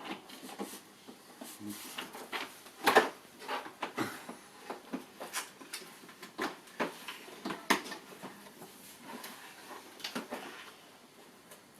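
Irregular clicks and knocks of hard plastic toy-shop parts being handled and fitted together, the loudest knock about three seconds in.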